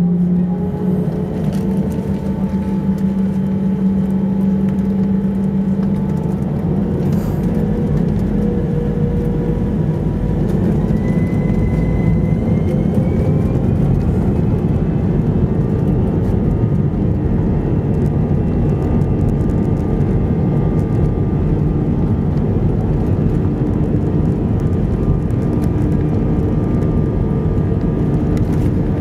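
Airbus A321 turbofan engines heard from the cabin over the wing during the takeoff run: a steady loud rumble with whining engine tones, some of which rise in pitch as the engines spool up.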